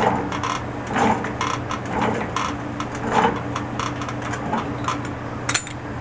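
Black iron pipe tee being screwed onto a water heater's gas control valve: rhythmic metal-on-metal scraping and creaking of the doped threads, about two strokes a second, easing off later, with a sharp click about five and a half seconds in.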